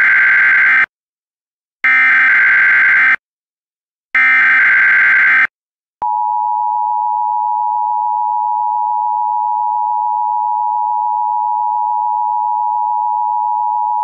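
Emergency Alert System SAME header: three short screeching data bursts about a second apart, the first already under way, encoding a tornado warning. About six seconds in, the long steady EAS attention tone starts.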